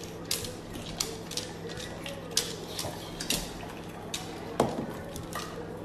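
Irregular light clicks and clinks, about two a second, over a steady low hum; the sharpest click comes a little over halfway through.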